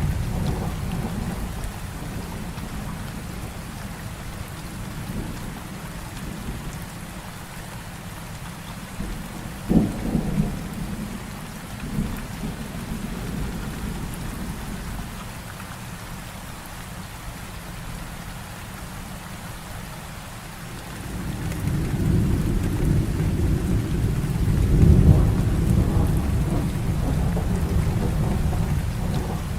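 Heavy rain falling steadily, with thunder. A rumble fades in the first few seconds, a sharp crack of thunder comes about ten seconds in, and a long rolling rumble swells from about two-thirds of the way through.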